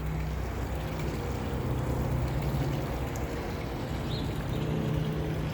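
Water running and splashing steadily over a pond bog filter waterfall, with a faint low steady hum underneath.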